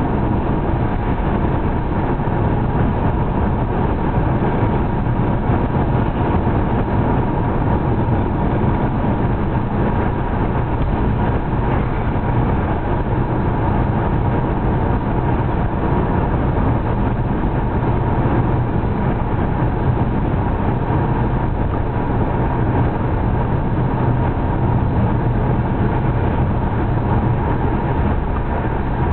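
A car being driven at steady speed, heard from inside the cabin: a constant low drone of engine and tyre noise.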